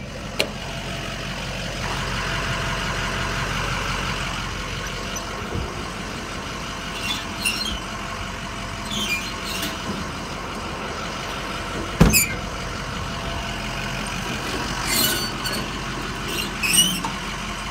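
Ford 6.0 Power Stroke V8 diesel idling steadily while the utility bed's steel compartment doors are opened and handled, with a few short metallic squeaks and rattles and one sharp knock about twelve seconds in.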